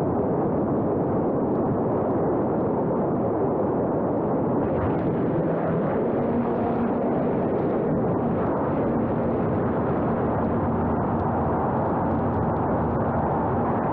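Steady rushing of wind buffeting the microphone, with a faint low hum coming in about six seconds in.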